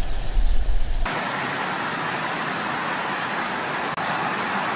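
Steady rush of water flowing in a shallow river, a constant even hiss that starts abruptly about a second in, after a brief low rumble.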